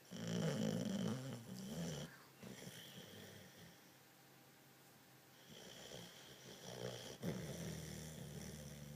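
Boxer dog snoring in its sleep: a loud snore in the first two seconds, then after a quieter pause a second, longer snore with a sharp catch partway through.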